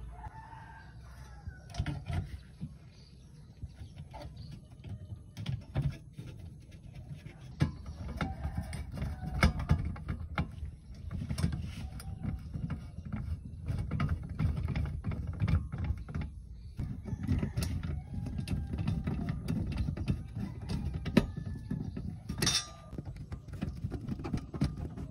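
A hand screwdriver turns screws into the sheet-steel chassis of a stereo CD/cassette player, with scraping and many small clicks and knocks as metal parts are handled. A short high-pitched sound comes near the end.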